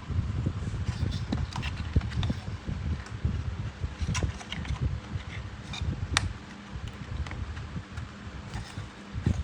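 Wind buffeting the microphone outdoors, a low, uneven rumble, with scattered light clicks and taps, two sharper ones about four and six seconds in.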